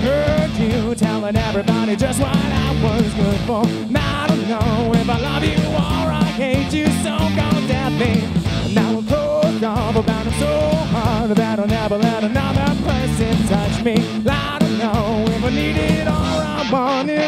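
A live rock band playing: drum kit, bass and electric guitars, with a singer's vocal line over them, at a steady loud level.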